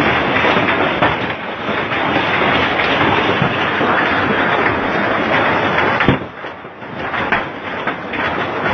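Heavy rain and hailstones pelting down, a dense, steady clatter. About six seconds in there is a sharp knock, and the noise drops for a moment before building again.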